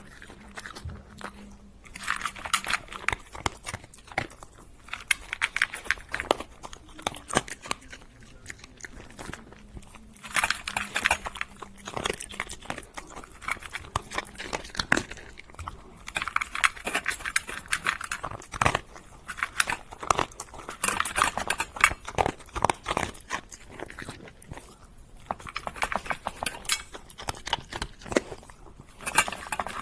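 Crunchy food being chewed: bouts of dense crunching every few seconds, with sparser clicks of chewing between them.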